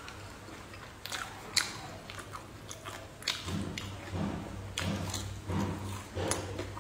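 Close-miked biting and chewing of crisp fried lotus root: a few sharp crunches with the loudest about a second and a half in, then rhythmic chewing strokes through the second half.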